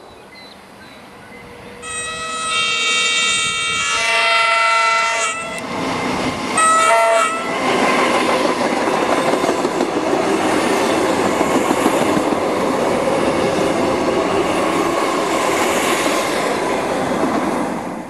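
Melbourne suburban electric train's whistle (air horn) sounding a held chord for about three and a half seconds, then a short second blast. The train then passes close by at speed with a steady roar of wheel and rail noise.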